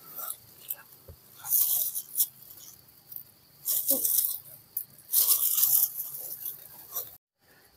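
Dry leaves and brush rustling and crackling in three main bursts of about half a second to a second each, with smaller crackles between them. The sound cuts off suddenly near the end.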